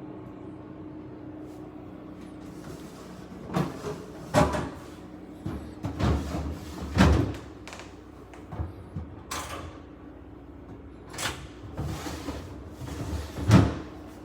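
Whirlpool top-freezer refrigerator's doors and drawers being opened and shut: a string of knocks, thuds and short sliding noises over a steady low hum, the loudest thud near the end.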